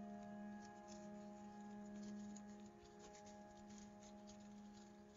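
Faint crackling and rustling of paper being creased and handled as an origami module is folded, over soft background music holding one low, steady chord.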